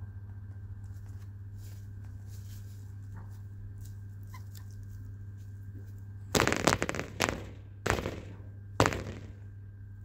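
Loud knocking and rustling from chickens close to the microphone. It comes in four quick bursts over about three seconds, starting a little past halfway, over a steady low hum.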